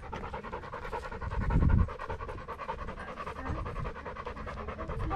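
A dog panting rapidly and heavily, heard close up from a camera strapped to its body, with a loud low rumble about a second and a half in. The dog is hot and tired.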